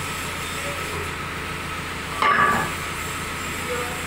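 JCB 3D backhoe loader's diesel engine idling steadily. About two seconds in, a loud half-second metallic clank rings out as the men work the pin at the bucket linkage.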